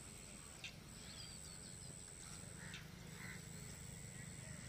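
Faint open-field ambience: a low steady background hum with a thin steady high whine, a few faint bird chirps about a second in, and a couple of faint ticks.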